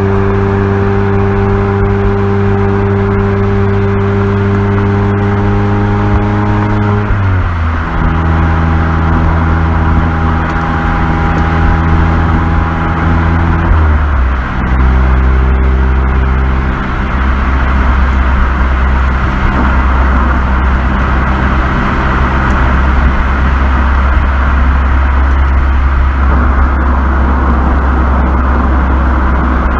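Mazda Roadster (MX-5) exhaust note while climbing a mountain road at a steady throttle, over tyre and road noise. The engine's pitch steps down about seven seconds in and again about fourteen seconds in, then holds lower.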